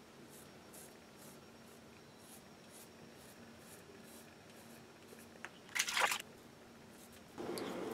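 Disposable razor scraping over facial stubble in short, faint strokes, two or three a second. About six seconds in there is a brief, louder rush of noise.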